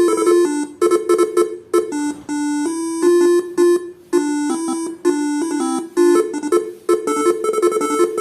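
Faniatech R3 telolet basuri horn module playing one of its electronic melody tones: a quick tune of short stepping notes, broken by a few brief pauses.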